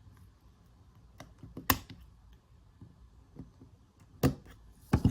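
A handful of separate sharp metallic clicks and light knocks from small engine parts being handled, as the connecting rod and its cap of a GX200-type engine are fitted together; the loudest click comes about a second and a half in.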